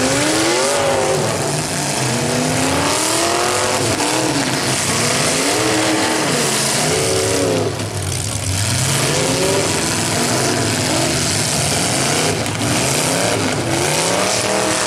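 Several demolition derby cars' engines revving hard over one another, pitch rising and falling again and again as the cars spin their wheels and ram each other.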